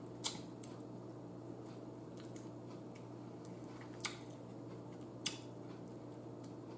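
Quiet eating sounds: a few short, sharp clicks and cracks as crab shell is picked apart with the fingers, over a low steady hum.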